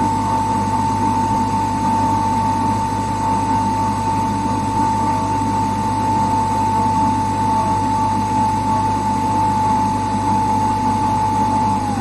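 Radio noise: a steady whistling tone held without change over a bed of static hiss and a low hum.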